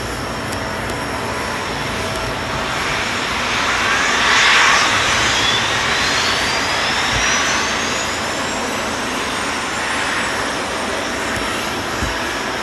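Jet airliner engine noise: a steady roar with a whine that rises in pitch over several seconds, swelling briefly in loudness about four seconds in.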